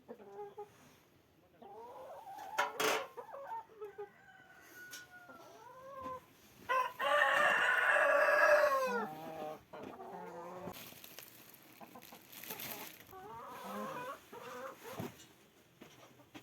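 Chickens clucking, with a rooster crowing once, long and loud, about seven seconds in.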